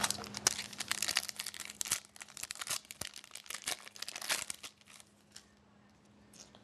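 Hockey card pack's foil wrapper being torn open and crinkled: a dense crackling that thins out and stops about five seconds in.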